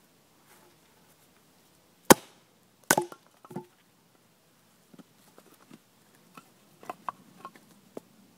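Ka-Bar Large Heavy Bowie knife chopping into wood: two sharp, loud chops about two and three seconds in and a lighter one just after. Then a run of smaller wooden knocks and taps.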